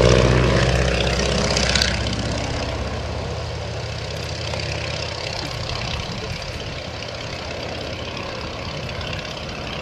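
Stearman PT-17 biplane's seven-cylinder Continental R-670 radial engine and propeller running in aerobatic flight. It is loudest at first, drops in level about two seconds in, then carries on as a steady drone.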